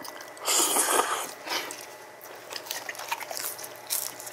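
Noodles in spicy stew sauce slurped into the mouth in one loud rush about half a second in, then quieter chewing with wet mouth smacks and clicks.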